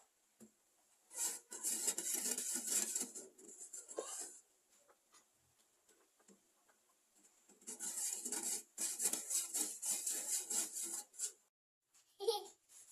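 Two spells of rapid rasping, scraping strokes, each about three seconds long, with a pause between them.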